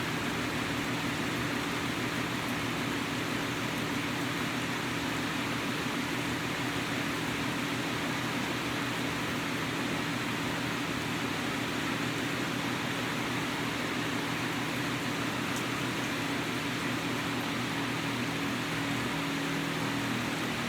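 Steady rain falling, an even hiss with no breaks, with a low steady hum underneath.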